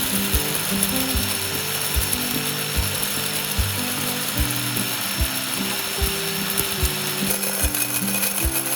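Background music with a steady beat of about one thump every 0.8 s and a stepping bass line, over a steady high hiss.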